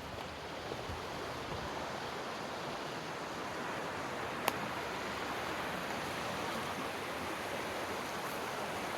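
Steady rush of creek water, with a single sharp click about halfway through.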